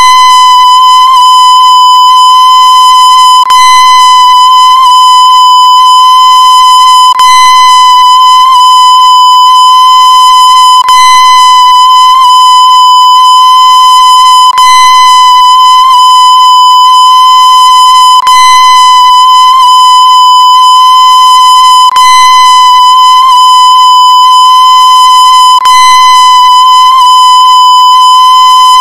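A loud, steady, high-pitched electronic tone, held at one pitch without a break, with a faint click about every three and a half seconds.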